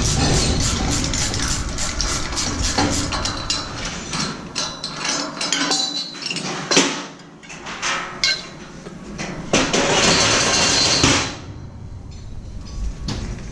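Steel scaffold parts and hand tools clinking and knocking: a fast run of sharp metallic clicks, then a few heavier knocks and a rough rush of metal scraping for about a second and a half, after which it goes quieter.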